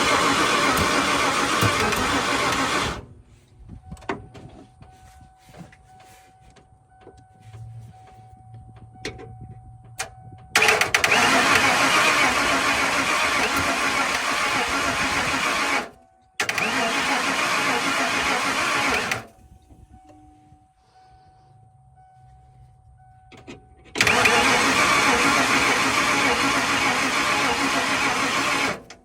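1993 Ford F-150's 5.0 V8 being cranked by the starter in four separate bursts of several seconds each, each one cut off abruptly. It is a truck that won't start, with a starter or ignition fault suspected.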